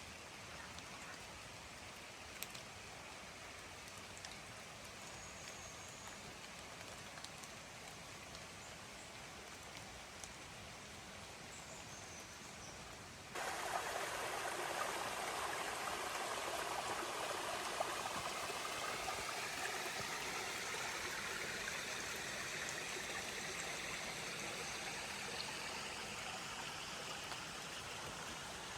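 Creek water running over rocks, a steady rush; about halfway through it cuts abruptly to a closer, louder rush of the water. Two faint short bird chirps sound in the quieter first half.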